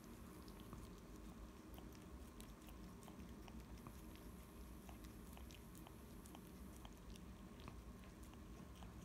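Siamese cat licking a strawberry: faint, irregular little wet clicks of its tongue, over a low steady room hum.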